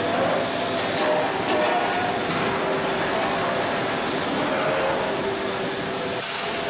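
Brewery keg line running: a steady machine din with hissing steam and faint held tones.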